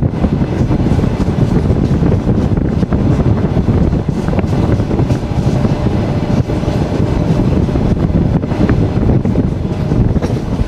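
Passenger railway carriage in motion, a loud steady low rumble of the running train heard from inside the carriage at the window.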